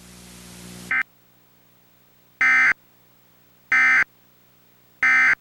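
Emergency Alert System end-of-message data bursts: three identical short, harsh digital screeches about a second apart, loud against a near-silent background. A brief burst and a hiss cut off about a second in.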